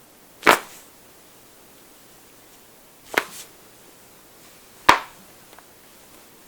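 Neck joints cracking: three sharp pops, about half a second in, about three seconds in and about five seconds in.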